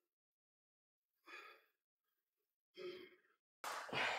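A lifter's sharp breaths, three in a row with pauses between, the last one loudest near the end, as he braces under a loaded hack squat machine before the set.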